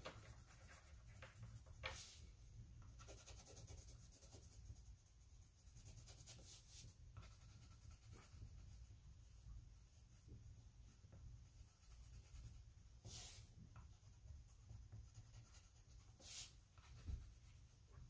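Faint scratching of a pen colouring in a picture on a sheet of paper, with a few brief, slightly louder strokes.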